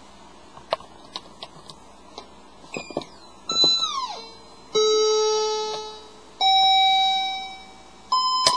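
Circuit-bent toy 'cake' keyboard with oscillator injection, played by hand. A few seconds of scattered clicks and short blips come first. Then an electronic note slides down in pitch, two held notes each fade away, and a new steady note starts near the end.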